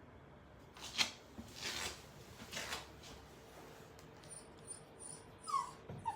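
Cavalier King Charles spaniel puppy scuffling, three short scratchy rustles, then two brief high squeaks near the end that fall slightly in pitch.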